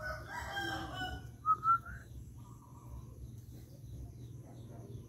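A rooster crowing for about a second, followed half a second later by two short, loud rising squeaks.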